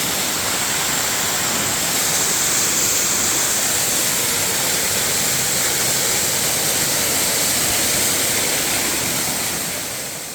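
Waterfall: the steady rush of falling water, heavy in high hiss, fading out near the end.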